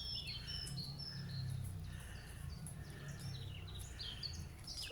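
Small birds chirping in a tree: many short, high chirps, some in little falling steps, over a steady low background hum.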